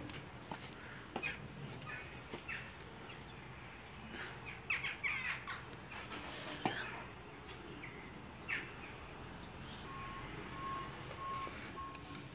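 Outdoor birds calling faintly, a few chirps and squawks clustered around the middle, over scattered light clicks and knocks. Near the end a string of faint, evenly spaced beeps, about three a second.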